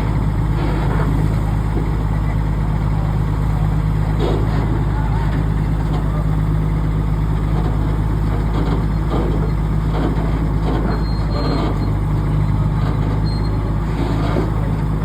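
Heavy diesel engine running steadily with a low, even drone.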